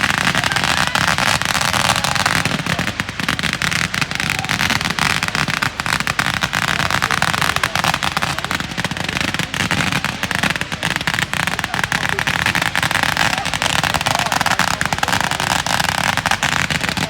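Fireworks and firecrackers going off in a dense, continuous crackle of many rapid bangs, over a steady hiss.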